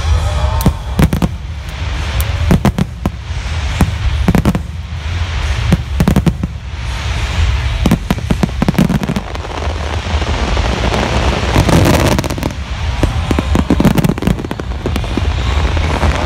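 Large fireworks display: a rapid, irregular barrage of shell bursts and mine launches, many bangs a second in clusters, over a continuous crackle and low rumble.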